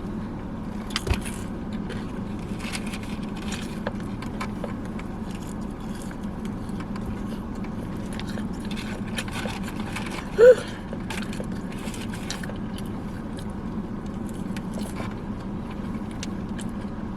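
Chewing and lip-smacking while eating chicken wings by hand, with many small clicks and smacks over a steady low hum from the car. A short pitched sound a little past halfway is the loudest thing, and there is a light knock about a second in.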